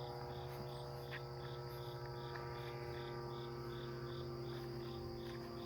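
An insect chirps in an even, high-pitched pulse about two and a half times a second, cricket-like, over a steady low hum.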